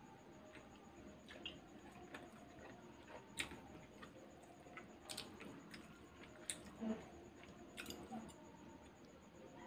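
Metal fork clicking against a china plate several times while a soft dessert is eaten, with faint chewing between the clicks.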